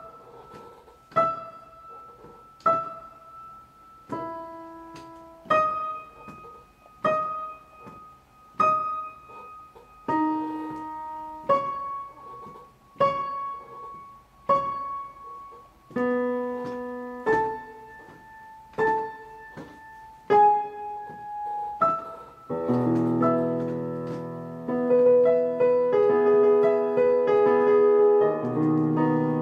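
Background piano music: slow, single struck notes about every second and a half, each ringing away, then fuller chords with low notes from about two-thirds of the way through.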